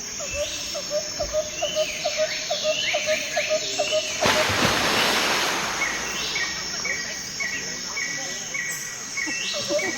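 Several birds calling over one another, with quick repeated low notes in the first few seconds and a steadily repeated higher call in the second half. A loud rushing noise about four seconds in lasts nearly two seconds.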